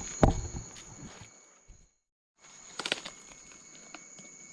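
Night insects keep up a steady, high-pitched chorus while footsteps scuff and a loud thump lands in the first second. The sound drops out completely for a moment about two seconds in, then returns with a quick cluster of clicks.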